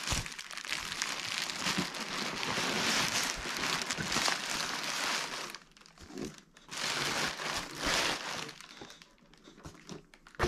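Plastic bubble wrap crinkling and rustling as hands pull it away from a boxed action figure and lift it out of a cardboard box. The crinkling runs dense for about five seconds, breaks off briefly, comes back in a shorter burst, then thins to scattered rustles near the end.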